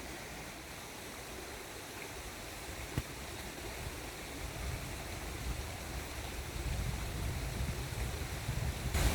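River water running steadily, with a single sharp click about three seconds in and a low rumble that grows louder over the last few seconds.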